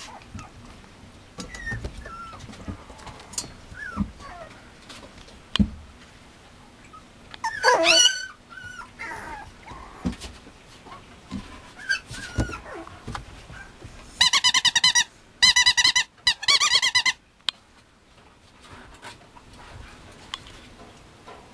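Mame Shiba puppy at play among toys: soft knocks and scuffles, a wavering whining yelp about a third of the way in and a fainter one later. The loudest sound is three steady, high squeals in quick succession, each under a second long, about two-thirds of the way through.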